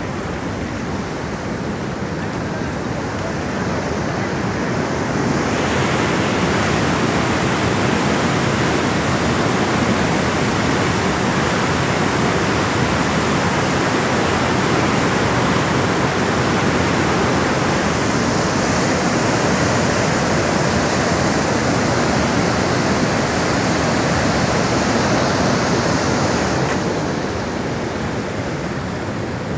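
Muddy flash-flood torrent rushing down a hillside and across a road, a loud steady roar of water. It swells and brightens about five seconds in and eases off a little near the end.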